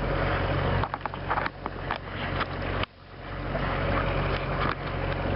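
A sailboat's inboard engine running steadily under way, with a low, even hum. About a second in, the hum gives way to crackling and knocks for a couple of seconds, then swells back in.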